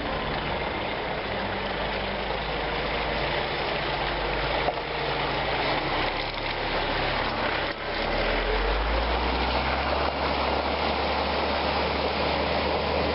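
Suzuki Grand Vitara's engine running at low off-road speed under a steady rushing noise. About eight seconds in the sound breaks and a louder, deeper engine drone takes over, with water rushing and splashing as the vehicle fords a river.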